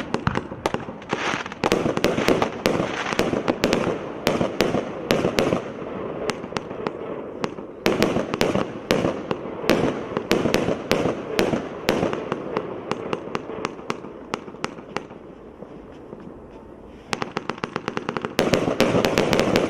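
A 99-shot consumer firework cake firing its volleys: rapid launch thumps and overhead bursts with crackling, thinning out past the middle, then a dense rapid string of bangs in the last couple of seconds, typical of the finale.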